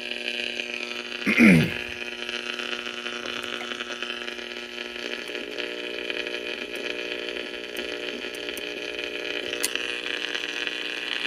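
Steady electrical hum and hiss from the 1938 Zenith Radio Nurse's tube receiver, a buzz with many overtones: the transmitter is sending, with touching the grid of one of its tubes being picked up at the receiver. About a second and a half in, one brief loud tone slides downward, and the hum grows and wavers from about halfway through.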